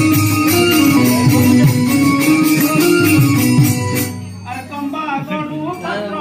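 Folk-theatre music with sustained melodic notes over drums and fast jingling percussion, which stops about four seconds in; a quieter passage follows with a voice whose pitch wavers.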